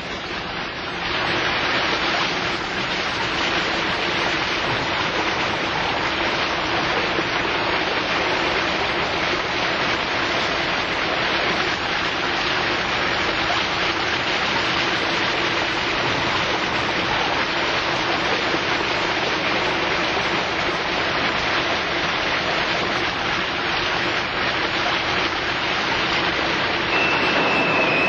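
Shower running: a steady spray of water pouring from a shower head. A thin high tone comes in near the end.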